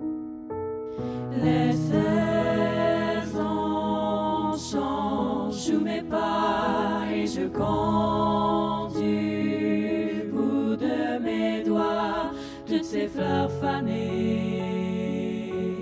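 Mixed four-part (SATB) voices singing a cappella in French, in close harmony. It starts soft on held notes and grows fuller about a second and a half in.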